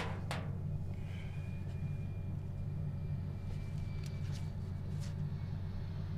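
Steady low hum of room tone, with a few faint rustles and clicks as papers in a folder are handled.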